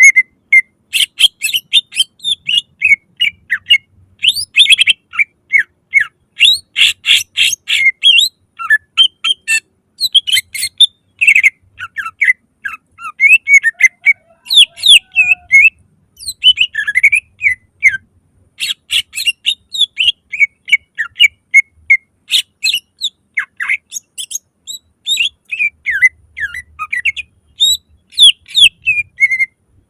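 Cucak ijo (greater green leafbird) singing loudly in rapid runs of short, sharply gliding whistled notes mixed with quick clicking bursts, with only brief gaps between phrases.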